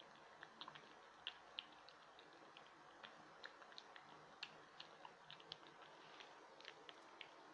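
A cat crunching dry kibble: faint, irregular small crunches and clicks, several a second.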